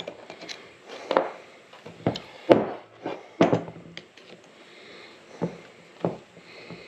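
Screwdriver prying worn bushing sleeves out of the ends of a side-by-side's knuckle (bearing carrier): a string of about ten sharp metal clicks and scrapes at irregular spacing.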